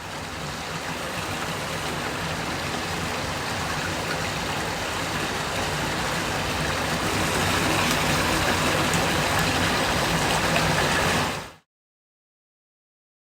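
A steady rushing noise like running water, growing slightly louder over about eleven seconds and then cutting off suddenly.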